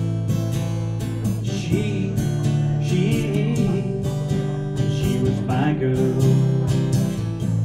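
Acoustic guitar strummed in a steady rhythm: a short instrumental break between sung lines of a live solo song.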